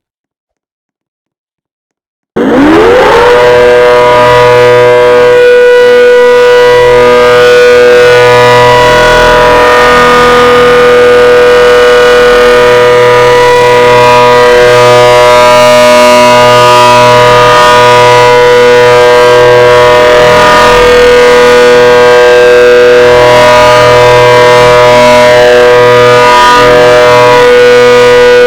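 Hurricane outdoor warning siren starting up about two seconds in, its pitch rising quickly, then sounding a loud, steady two-note chord.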